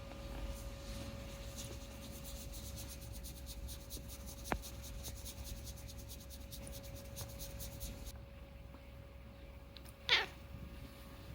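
A domestic cat gives one short meow about ten seconds in, against a quiet room with a single faint click near the middle.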